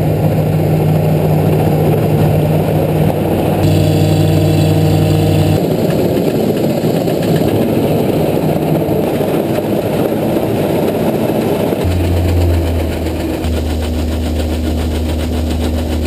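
Claas combine harvester running while harvesting rice: a loud, steady engine and machinery drone whose low hum shifts abruptly a few times.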